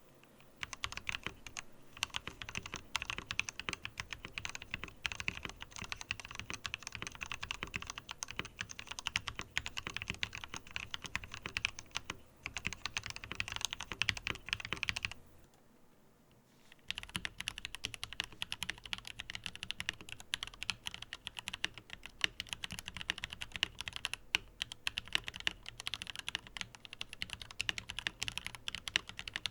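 Fast, continuous typing on a Tom680 mechanical keyboard: a dense run of key clacks that stops for a moment about halfway through, then resumes sounding brighter.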